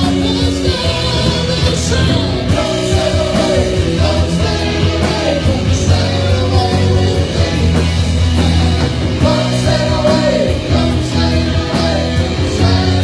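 Rock song played live with singing and guitar over a steady bass and a drum beat.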